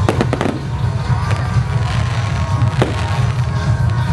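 Aerial firework shells bursting: a quick run of several bangs right at the start, then single bangs about three seconds in and at the end, over a steady low rumble.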